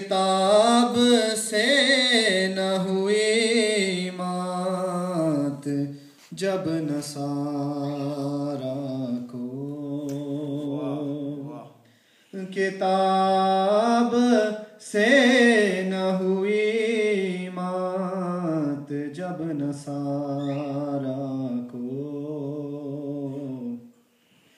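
A man chanting a manqabat, a devotional poem in praise of Imam Ali, unaccompanied into a microphone. He sings in long phrases with a wavering, ornamented melody, pausing briefly between them.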